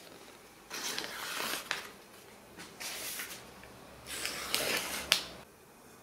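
A glossy catalogue page being cut on a katana's edge: three rustling, tearing strokes of about a second each, the last ending in a sharp snap about five seconds in.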